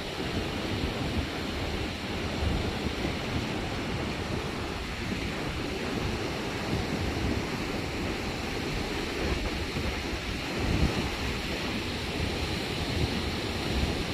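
Ocean surf washing onto the beach, with gusty wind buffeting the microphone.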